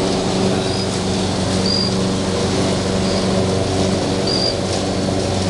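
A steady low hum with a hiss behind it, and a bird's short high chirp repeating about once a second.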